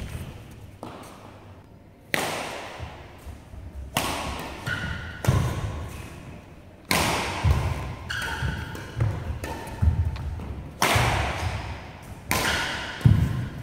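A badminton rally: a shuttlecock is struck sharply by rackets about every one and a half to two seconds, each hit echoing in the hall. Lower thuds of feet landing on the court fall between the hits.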